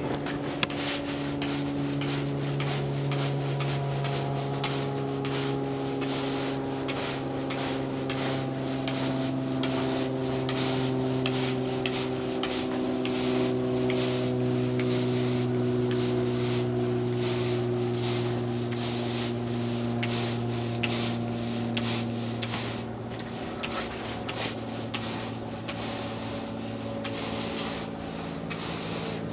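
Stiff push-broom bristles scrubbing back and forth across artificial turf in repeated scraping strokes, working a white powder into the synthetic grass. A steady low hum runs underneath.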